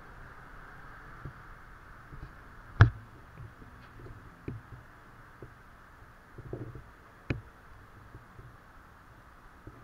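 A faint steady hiss with a few sharp knocks or clicks. The loudest comes about three seconds in and another clear one about seven seconds in, with softer ones in between.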